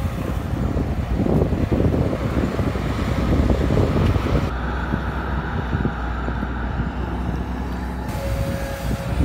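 Caterpillar E120B hydraulic excavator's diesel engine running hard under load as the machine digs soil and swings a full bucket over to a dump truck. The sound is steady throughout.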